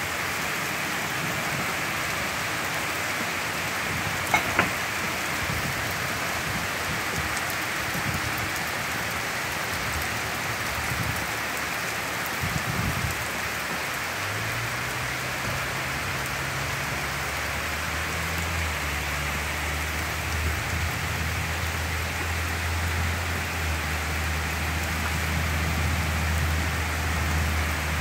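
Heavy thunderstorm rain pouring steadily onto trees, leaves and a wooden deck. Two sharp knocks come about four seconds in, and a low steady hum joins about halfway through.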